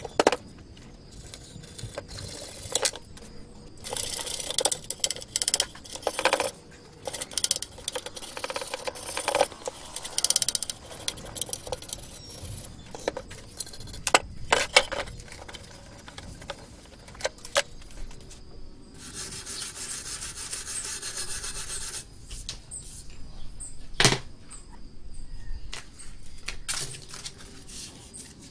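Cast-aluminium Yamaha Mio Sporty crankcase cover being handled and shifted on a wooden block: scattered metallic clanks and knocks, with several stretches of scraping and rubbing, one steady one lasting about three seconds around two-thirds of the way through.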